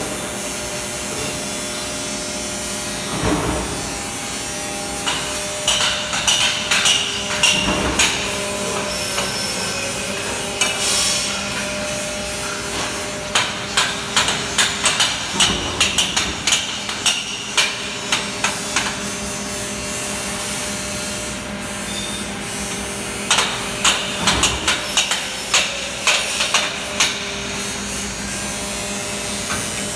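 Hammer blows on aluminium stage-truss frames, rapid strikes a few per second in three spells, over a steady workshop machine hum.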